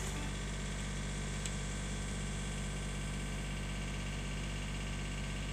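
Komatsu PC35 mini excavator's diesel engine running steadily at an even pitch.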